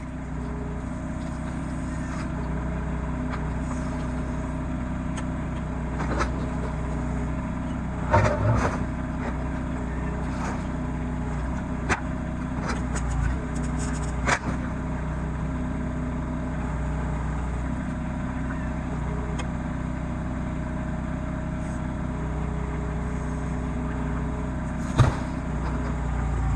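RK25 compact tractor's diesel engine running steadily while the backhoe works, with a few sharp knocks and clanks scattered through, the loudest near the end.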